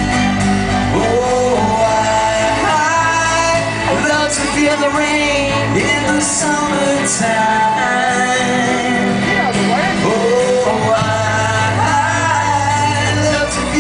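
Live rock band playing: strummed acoustic guitars and drums, with a male voice singing at times but no clear words.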